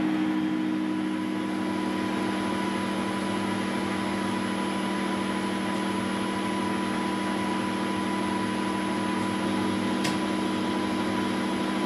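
1972 Weiler Matador SV metal lathe running steadily at 800 rpm, its drive humming at several fixed pitches, while the turning tool takes a light 0.125 mm finishing cut along the spinning workpiece. A faint click comes about ten seconds in.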